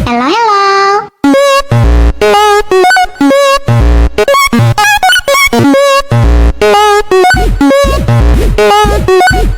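Electronic dance music: a synth tone swoops upward, then after about a second a bouncy pattern of short synth notes runs over a heavy, steady beat.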